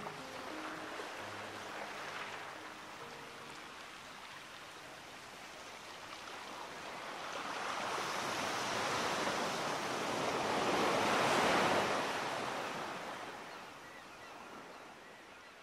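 Rushing surf: a wash of noise that swells to a peak about eleven seconds in, then slowly fades out.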